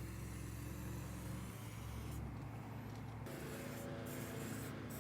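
A faint, steady low motor hum with a light hiss over it.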